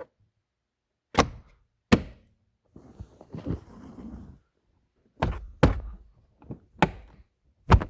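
Plastic under-dash trim being snapped and pressed into place: a string of sharp thunks, two early and four or five more in the second half, with a stretch of rustling handling in between.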